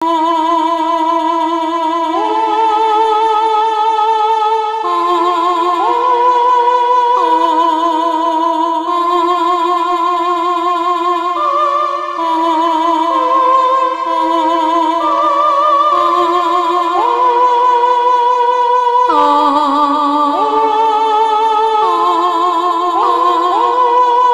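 Music: slow, sustained chords of several layered, wavering tones that shift to new notes every couple of seconds.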